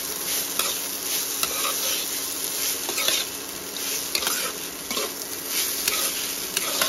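Metal spoon stirring and tossing poha in a nonstick kadhai, with irregular scrapes and clicks against the pan and a light sizzle from the frying rice, over a steady hum.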